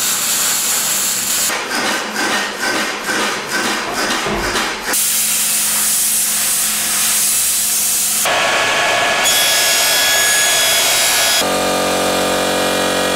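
Metalworking tool sounds cut together, each breaking off sharply. First come rhythmic scraping strokes, a few a second. Then a steady hiss as an angle grinder throws sparks off steel, then a whining tool, and near the end the steady hum and hiss of a sandblasting cabinet.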